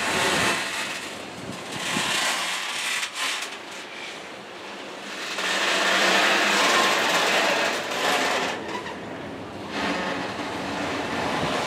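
Freight train of covered hopper cars rolling past, steel wheels running on the rails with a steady rattle. It grows louder about halfway through, then eases near the end.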